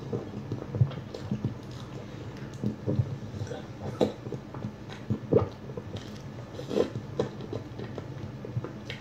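Someone biting and chewing food: irregular wet smacks and clicks of the mouth.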